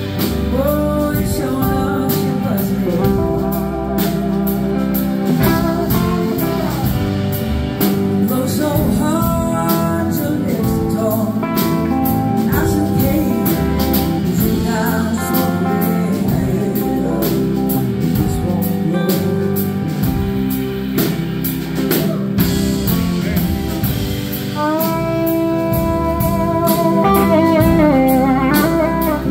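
A live blues-rock band playing with electric guitars and drum kit, and singing over it. Near the end, sliding electric guitar lines come to the fore.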